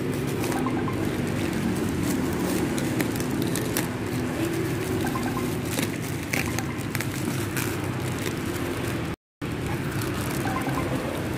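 Parcel wrapping of paper and plastic being handled and torn open by hand, with scattered crackles over a steady low hum. The sound cuts out briefly about nine seconds in.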